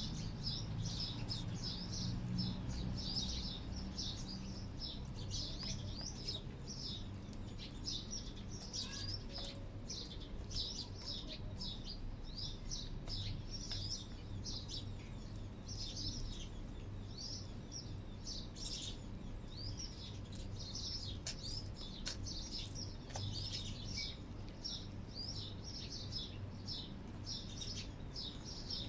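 Small birds chirping continuously in quick, short overlapping notes, with a low steady hum underneath.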